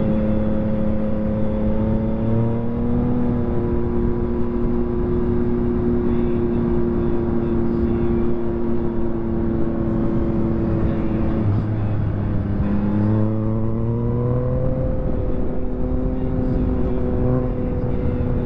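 Yamaha MT-09 SP's 890 cc inline-three engine through a full Akrapovic race exhaust, running under way at fairly steady revs. The note rises a little early on, then dips and climbs again about twelve seconds in as the throttle is rolled off and opened.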